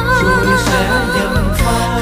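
Music: a Vietnamese song, a wavering melody with vibrato over instrumental backing and sustained bass notes.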